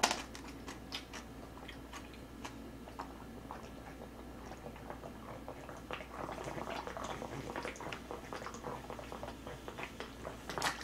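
Soft mouth noises of chewing and swallowing, then from about halfway through a person gulping a drink from a carton of black-bean soy milk, with small clicks of the carton being handled.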